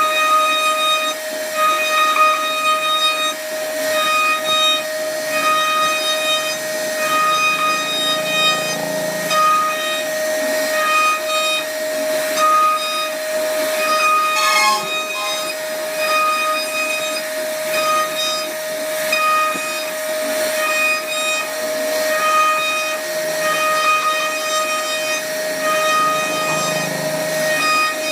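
CNC router spindle whining steadily while cutting wood, with higher-pitched tones cutting in and out in short runs about a second long.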